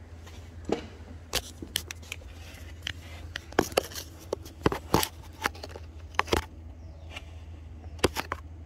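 Irregular sharp clicks and knocks of tools and engine parts being handled during work on the engine, over a steady low hum.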